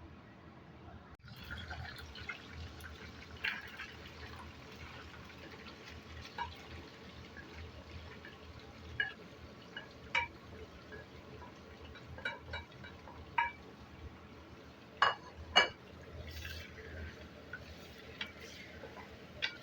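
Kitchen cooking sounds: a steady hiss with scattered sharp clinks and knocks of utensils on cookware. The sound starts abruptly about a second in, and the two loudest knocks come close together about fifteen seconds in.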